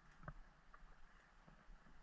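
Near silence: a faint hiss with a few soft clicks, the clearest about a quarter of a second in.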